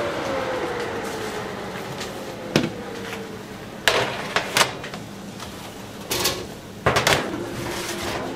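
A stainless-steel convection oven being opened, with a whine from the oven that slowly falls in pitch over about three seconds, then metal baking trays clanking and scraping against the oven racks several times as a tray of garlic bread is pulled out.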